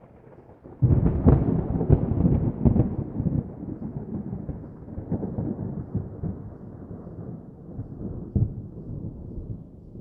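Thunder: a clap breaks out suddenly about a second in and crackles for a couple of seconds, then rolls on and slowly fades, with one more sharp crack near the end.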